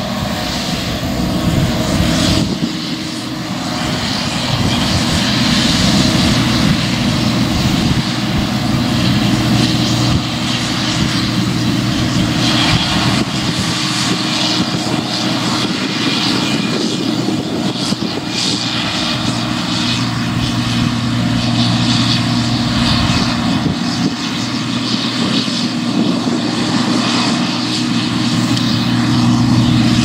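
Case IH Axial-Flow 5088 combine harvester working in barley: a steady drone from its diesel engine and machinery, with a broad rushing hiss over it.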